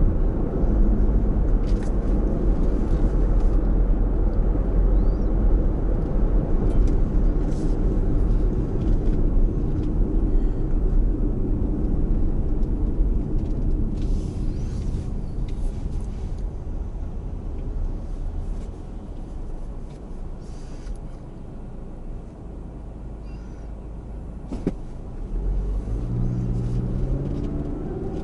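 Car driving on a city street: a steady low rumble of engine and tyres that dies down for a few seconds past the middle, then the engine note rises as the car speeds up near the end. A single sharp click comes shortly before the engine picks up.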